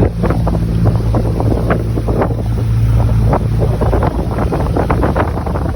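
A motor humming steadily under heavy wind buffeting on the microphone; the motor hum fades about four seconds in while the wind noise goes on.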